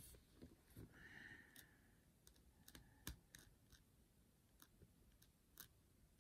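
Faint, scattered clicks of a Posca paint pen's nib tapping on the stone as paint is dabbed on, about one or two a second, with a brief faint squeak about a second in.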